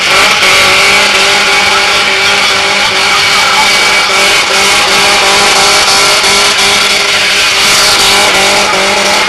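Car engine held at high, steady revs while its tyres spin in a smoky burnout donut, with the hiss and screech of the spinning tyres over it.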